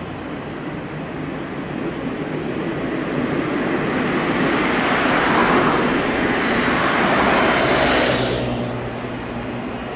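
A vehicle passing close by: a broad rushing noise builds over a few seconds, stays loud for a few seconds, then falls away quickly about eight seconds in.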